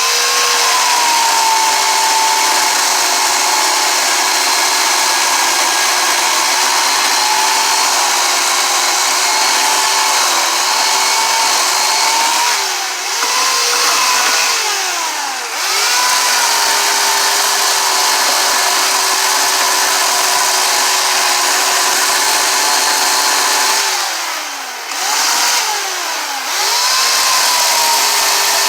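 Chainsaw running at high revs, cutting into hardwood with a dull chain. About halfway through and again near the end the engine speed drops and climbs back as the throttle is eased off and opened again.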